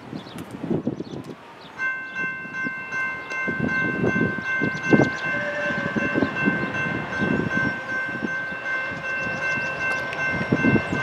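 Norfolk Southern GE D9-44CW locomotive's multi-chime air horn blowing one long held chord as the train approaches, starting about two seconds in.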